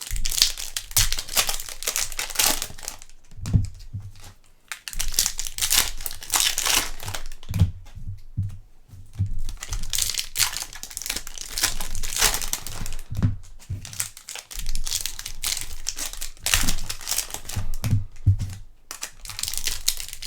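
Trading-card pack wrappers and packaging crinkling and tearing as they are handled and opened, in irregular rustling bursts with a few soft knocks.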